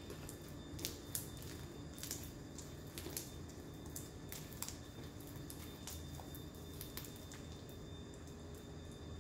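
Blue glitter slime made from clear glue, still a little sticky, being kneaded and squeezed by hand: soft squishing with irregular wet clicks and pops, thicker in the first half.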